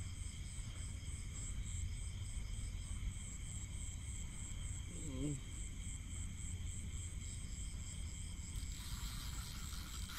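Night insects chirping steadily in a fast pulsing rhythm over a low steady rumble, with a short low warbling call about halfway. Near the end a fishing reel's drag starts buzzing as a hooked fish pulls line off.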